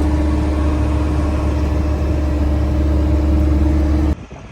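Heavy diesel earthmoving machine running steadily, a loud low hum with a steady droning tone, which stops abruptly near the end.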